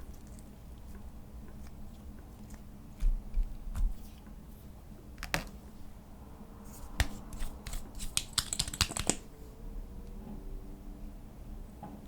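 Close-up sounds of slime and makeup being worked by hand: scattered sharp clicks and crackles, a few low thumps about three seconds in, and a quick run of clicks about eight to nine seconds in.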